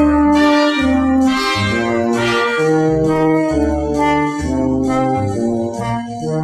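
Brass-led orchestral easy-listening music, trombones and trumpets playing sustained chords over a low bass line, from a 1960 stereo LP digitized from vinyl.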